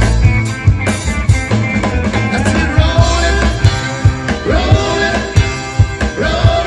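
Rock band playing a song, with electric guitar, bass and drum kit and a voice singing over it.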